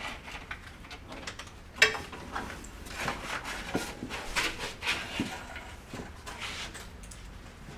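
Scattered clicks, rustles and light knocks of wiring being handled and moved over a refrigerator's cooling unit and sheet-metal cabinet, with one sharper knock about two seconds in.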